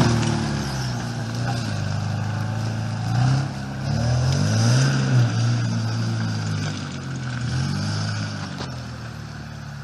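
Engine of an off-road 4x4 running under load, with its pitch rising twice in short revs about three and four and a half seconds in, then easing off and fading.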